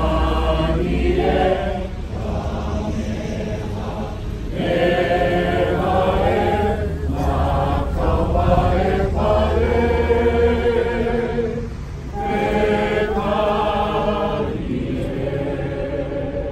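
A crowd singing a Hawaiian chant together in phrases, with short breaks between lines. A low rumble runs under it for about the first ten seconds.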